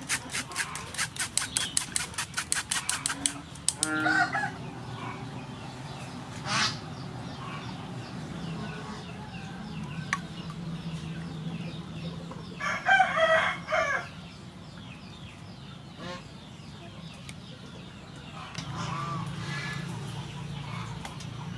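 Domestic chickens clucking, with a rooster crowing loudly about halfway through. At the start, a spoon scrapes quickly and evenly against a metal mesh strainer.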